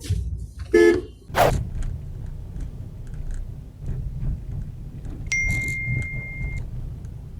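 Steady low engine and road rumble inside a moving Tata Tiago's cabin. A short horn toot sounds just before one second in, a sharp thump follows half a second later, and a steady high electronic beep lasts just over a second in the second half.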